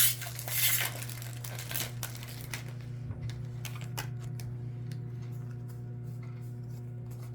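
Foil Pokémon booster pack wrapper being torn open and crinkled, loudest in the first second or so, followed by scattered light clicks and taps as the cards are handled. A steady low hum runs underneath.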